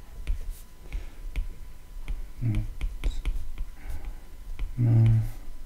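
Stylus tapping on a tablet's glass screen during handwriting: a scattering of light, irregular clicks. Soft murmured speech comes twice, about halfway through and near the end.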